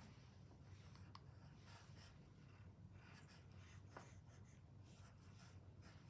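Faint scratching of a graphite pencil on paper as lines are drawn in short, irregular strokes, over a low steady hum.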